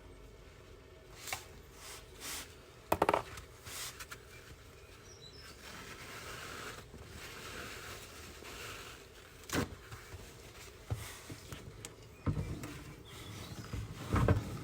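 Scattered clinks and knocks of tools and parts during work on a car's automatic transmission pan, the loudest about three seconds in, with a soft hiss for a few seconds in the middle.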